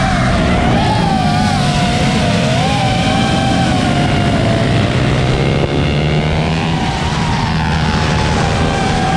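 High-pitched motor whine whose pitch wavers up and down, over a steady low hum.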